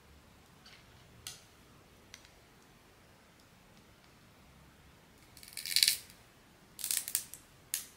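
Blind-box packaging being handled: a few faint clicks, then three short bursts of rustling, the first and loudest about two-thirds of the way in and the last brief one near the end.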